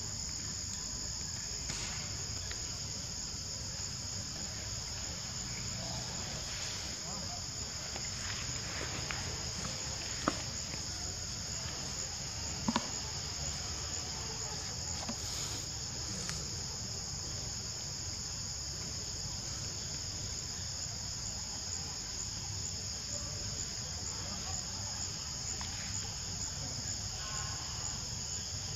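Steady, high-pitched chorus of forest insects, crickets or cicadas, shrilling without a break. A couple of short clicks stand out near the middle.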